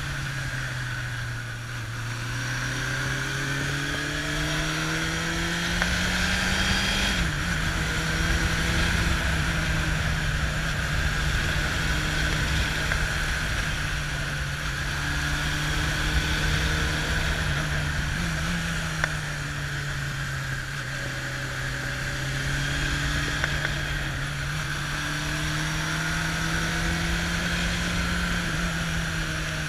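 Kawasaki Zephyr's air-cooled inline-four engine running under way. Its pitch climbs for several seconds, drops sharply at an upshift about seven seconds in, then sags and climbs again. Steady wind rush over the microphone underneath.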